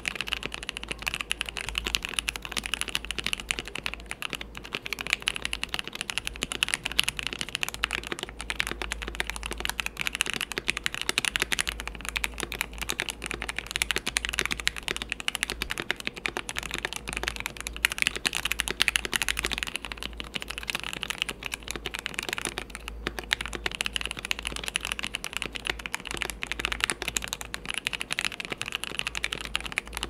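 Fast typing on a mechanical keyboard with Gateron linear switches: first Milky Yellow Pros, then Box Black Inks. The short passages switch between stock switches and switches lubed by the Gazzew method with Krytox 205 grade 0. Lubed, both switches are quieter and lower pitched; stock, they are louder and sharper.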